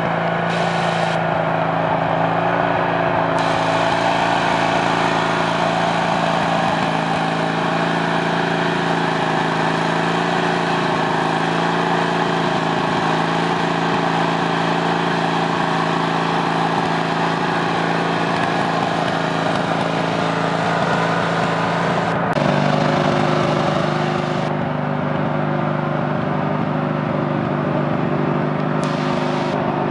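Craftsman riding lawn mower's engine running steadily under load as the mower crawls over logs on a rough trail. Its note changes abruptly about two-thirds of the way through.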